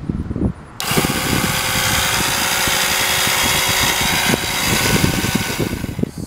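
Small electric fluid-extraction pump, wired to plus and minus leads, switched on about a second in and running with a steady whir. It eases a little after about four seconds and stops near the end.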